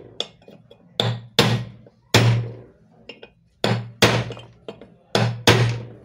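Hammer striking metal in short pairs, about seven sharp ringing blows in all, tapping a new bush retainer tight all round in a mixer-grinder motor's cast end shield so the sleeve bush is held firm.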